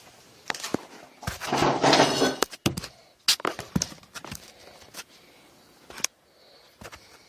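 Handling noise from a phone being repositioned for filming: a string of knocks and clicks, with a short louder rasping sound about two seconds in.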